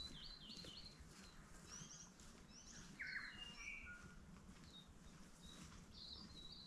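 Faint birdsong: small birds giving short, high chirps and twitters on and off, over a quiet background.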